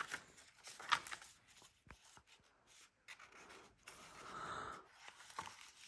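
Faint rustling and rubbing of a paperback picture book's pages as they are turned and handled, with two sharper paper flicks about a second apart near the start.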